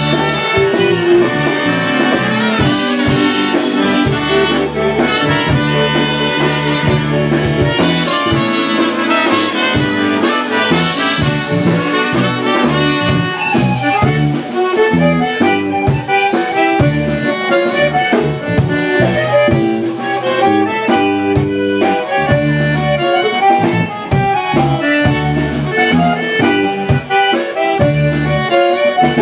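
Live polka band playing an instrumental passage: piano accordion and concertina over bass guitar and drums, with a steady beat.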